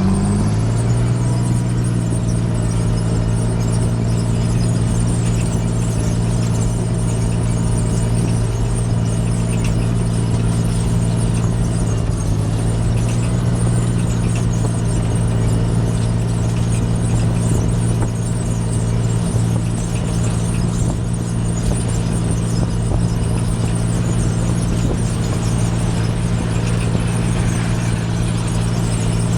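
John Deere 8410 tractor's six-cylinder diesel engine running steadily, its note rising slightly about a second in and then holding even.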